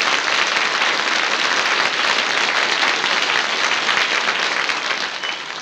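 Studio audience applauding, easing off a little near the end.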